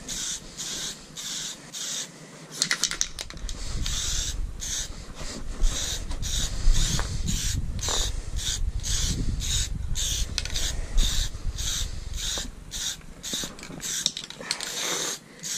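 Aerosol can of acrylic clear coat spraying in short hissing bursts, about two a second, as the sticker-covered helmet is coated.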